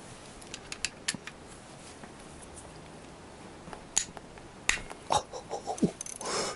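Steel hand tools clinking: a socket, extension bar and speed brace handled and clicked together. Scattered light clicks come first, then several louder sharp metal clacks from about four seconds in.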